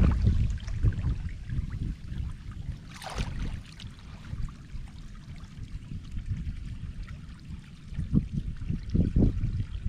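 Shallow flood water sloshing and splashing as someone wades and gropes in it by hand, with a few louder splashes near the end.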